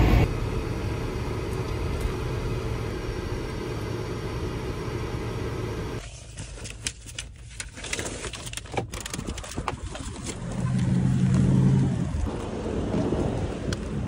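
Steady low rumble of a car's engine and cabin for about six seconds, then, after a cut, scattered clicks and rustling of a shopping bag being handled, with a brief low hum near the end.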